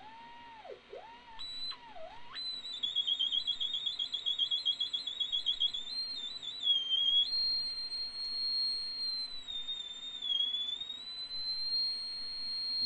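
Theremin playing a single whistling tone: quick swooping dips in pitch for the first two seconds, then a leap to a high, piercing pitch with fast wavering vibrato, after which the note is held high with a few slow sags.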